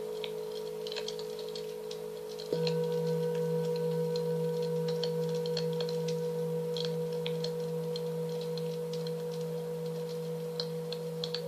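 Singing bowls ringing with long, steady tones. About two and a half seconds in, a bowl is struck and rings on with a low hum and clear higher overtones. Faint, short high chirps and ticks sound over them.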